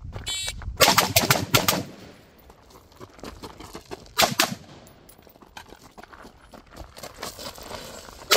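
AR-pattern carbine firing short, rapid bursts of rounds: a burst about a second in, a shorter one around four seconds, and another at the end, each shot followed by a brief echo.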